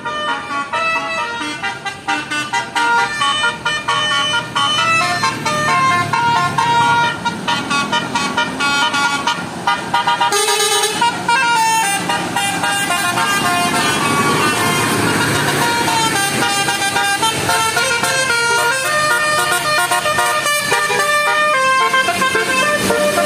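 Bus telolet horn of the Basuri type playing a quick tune of short, stepped musical notes, over the bus's engine and road noise.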